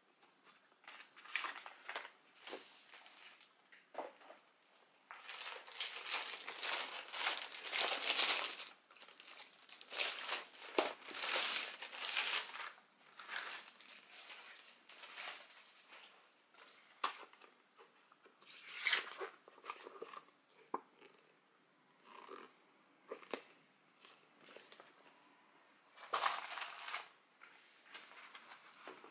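Paper and plastic rustling and crinkling in irregular bursts of handling: a printed sheet, a plastic packet and a rolled diamond painting canvas being picked up and unrolled.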